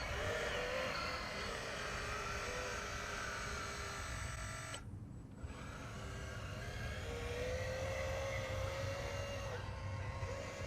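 Hydraulic RC bulldozer's electric pump and drive motors whining, the pitch wavering up and down as the load changes, over a low rumble. The upper whine drops out briefly about five seconds in.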